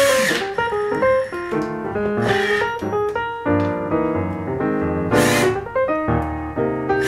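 Background piano music, broken twice by short bursts of a cordless drill driving drywall screws, about two seconds in and about five seconds in.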